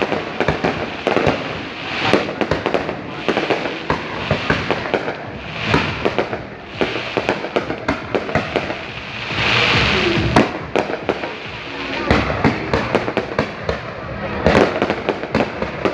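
Fireworks display going off: a continuous run of bangs and crackles, with a louder hissing rush about two-thirds of the way through.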